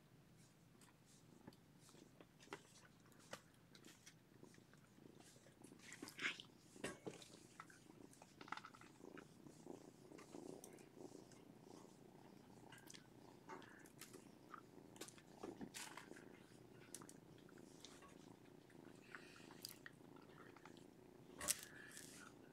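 A domestic cat purring, faint and steady, with scattered soft clicks and rustles.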